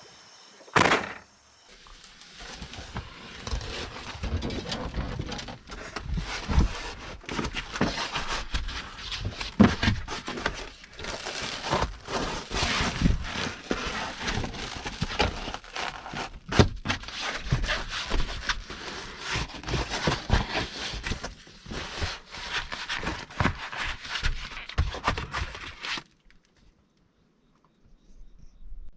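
Irregular crackling and rustling handling noises with scattered knocks, after a single sharp click about a second in; they stop abruptly a few seconds before the end.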